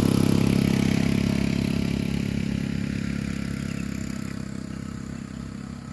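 Small motorcycle engine running with a fast, even pulse, its sound fading steadily over the few seconds as it draws away or eases off.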